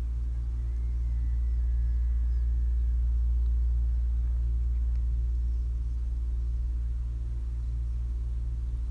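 A low, steady droning hum that swells a little in the middle, with a few faint, high, short chirps.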